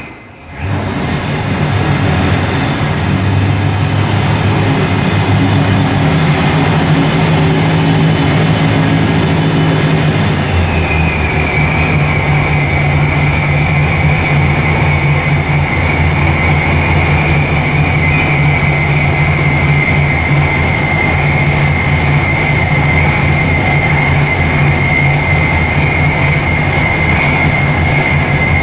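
Supercharged 540 cubic inch big-block Chevy V8 running steadily at a low, even speed on the engine dyno after a full-power pull. A high, steady whine joins it about ten seconds in.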